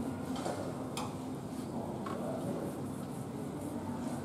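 Knife scraping the scales off a whole fish on a steel tray: steady scraping strokes with a few short clicks of the blade.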